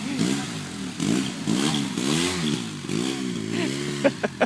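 Polaris RZR 800's twin-cylinder engine revving up and down over and over, about twice a second, as it works through the mud. A few sharp knocks near the end.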